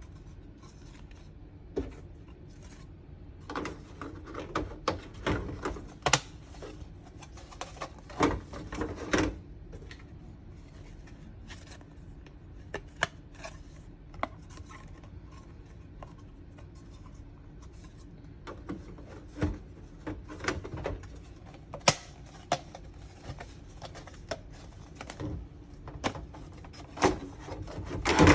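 Hard plastic diorama parts being handled and popped out one after another: irregular clicks, snaps and rubbing scrapes, with a few sharper snaps.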